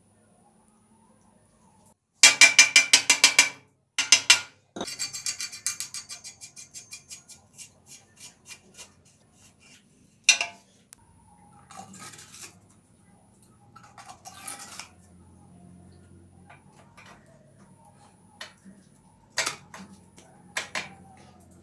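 Metal bicycle parts and tools clicking and clinking as a headset and suspension fork are handled and fitted. About two seconds in comes a fast run of loud clicks. A second run of clicks follows, slows and fades over a few seconds, and then there are scattered single clinks.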